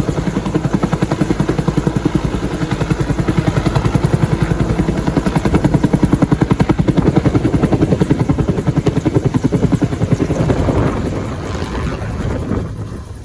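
Bell 205 helicopter's two-bladed main rotor beating rapidly over the turbine, a fast steady thumping; about eleven seconds in the beat softens and the sound gets quieter.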